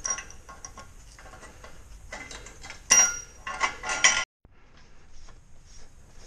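Steel bars and brackets of a homemade three-point hay unroller clanking and rattling as they are handled on a concrete floor, with a loud run of ringing metal clanks about three seconds in. The sound cuts off abruptly just after four seconds, and fainter metal ticks follow.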